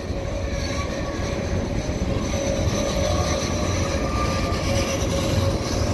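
Freight cars (covered hoppers and tank cars) rolling slowly past on the rails: a steady rumble of wheels on track, with a faint steady whine above it.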